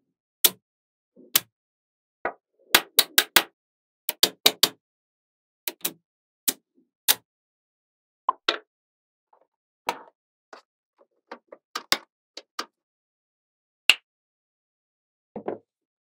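Magnetic balls clicking together: about two dozen sharp snaps, some single and some in quick runs of three or four, as magnetic-ball wall sections are pressed and joined.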